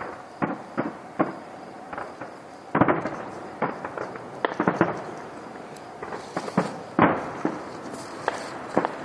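Fireworks display going off in the distance: irregular bangs throughout, with a quick cluster about three seconds in and a single loud bang about seven seconds in.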